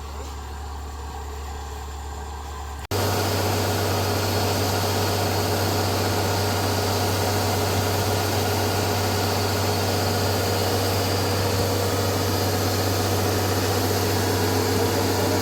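Rice harvester's engine running steadily. About three seconds in, the sound breaks off abruptly and comes back as a louder, fuller engine-and-machinery noise with a strong low hum.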